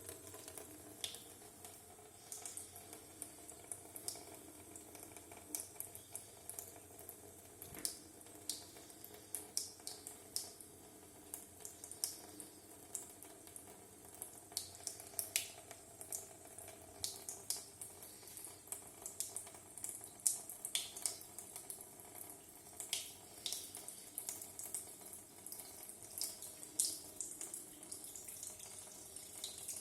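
Water running from a tap into a sink, a steady flow with irregular splashes and drips. It starts suddenly right at the beginning.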